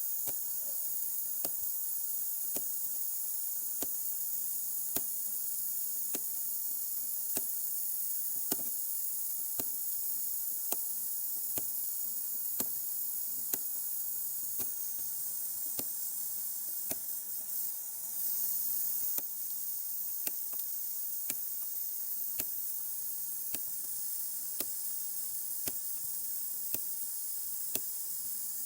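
Light taps of a dent-repair knockdown tool on a car's sheet-metal wing, evenly spaced at roughly three every two seconds, over a steady hiss: the small quick taps used to level a pulled dent.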